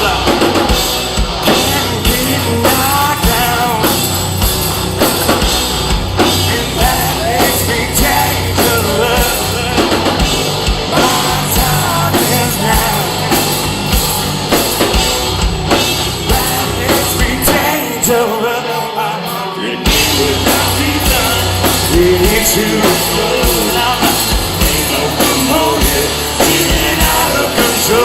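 Live hard rock band playing loud with drums, distorted guitars and bass. About two-thirds of the way through, the drums and bass drop out for a couple of seconds, then the full band comes back in.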